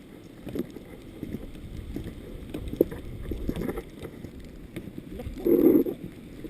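Storm wind buffeting the microphone as a steady low rumble with scattered knocks, and a stronger gust about five and a half seconds in.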